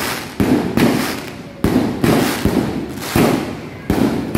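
A 49-shot, 1.9-inch firework cake firing its shots in quick succession: about six sharp bangs, roughly one every half to three-quarters of a second, each followed by a short fading crackle.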